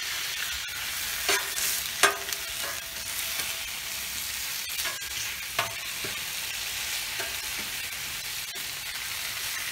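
Thinly sliced potatoes frying on a Blackstone flat-top griddle on high heat, a steady sizzle, with a metal spatula scraping and clicking against the steel a few times.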